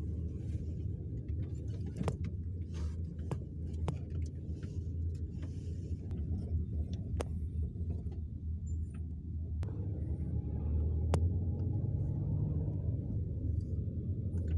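Steady low rumble of a car's engine and road noise heard from inside the cabin, with a few scattered sharp clicks.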